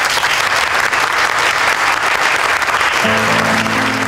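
A crowd applauding, an even clatter of many hands. About three seconds in, a low sustained chord of background music comes in under the clapping.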